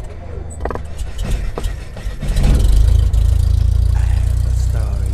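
Logo-intro sound design: a deep, loud rumble with sharp clicks and crackling over it, swelling about two and a half seconds in and then holding steady.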